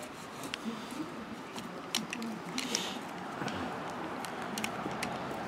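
A screen spline roller pressing spline and screen mesh into the channel of a screen door frame: scattered small clicks and ticks over a faint steady background.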